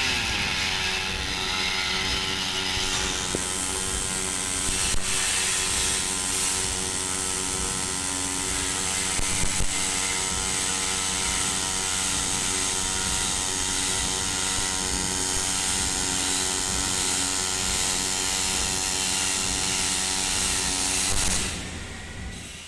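Pulse MIG welding arc on 2 mm thin aluminium sheet, giving a steady buzzing hum as one bead is laid. It stops about a second before the end.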